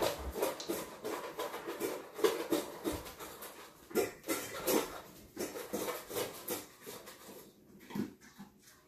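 Dry dog kibble rattling in a plastic tub and spilling onto a tile floor: irregular short rattles and clicks, with sounds of the dogs among them.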